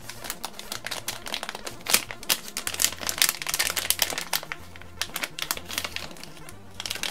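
Clear plastic bag crinkling and crackling in the hands while a small item is taken out of it, a quick irregular run of small crackles.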